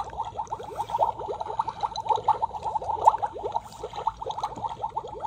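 Rapid, continuous bubbling and gurgling from the Beast Lab Shark Beast Creator toy's heated chamber as the mixture inside steams.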